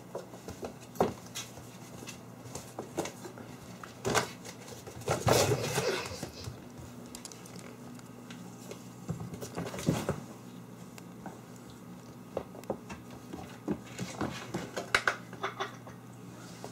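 Kittens playing: scattered quick taps, scrabbles and thumps of paws and bodies on a wooden floor and cardboard boxes, with a louder scuffle lasting about a second some five seconds in.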